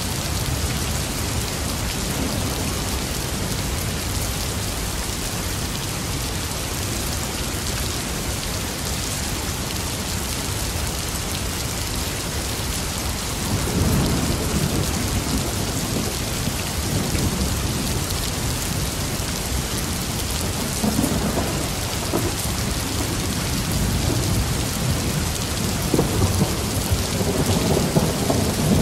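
Steady rain falling, with thunder rumbling in about halfway through and rolling on, growing louder near the end.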